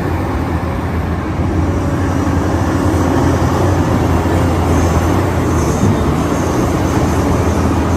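A vehicle engine running steadily: a continuous low hum under an even noisy rush, with no change in speed.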